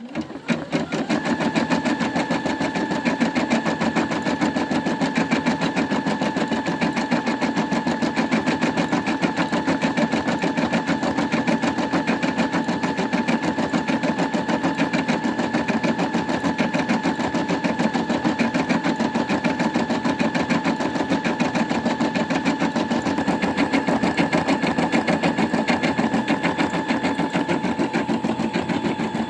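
Brother Innov-is M280D embroidery machine starting up and stitching an embroidery design. A fast, even needle clatter runs over a steady motor whine.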